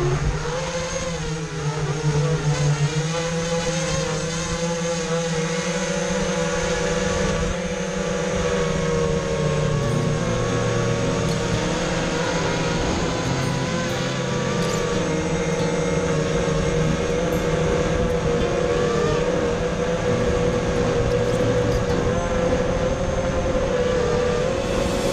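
Brushless motors and propellers of a ZMR 250 racing quadcopter whining steadily, heard through the GoPro Session mounted on it. The pitch wavers up and down as the throttle changes in flight.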